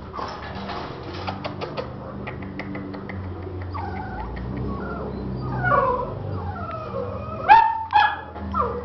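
American Bully puppies whining and yelping in rising and falling cries, with two loud sharp yelps near the end. Light rapid clicks and rustling fill the first few seconds.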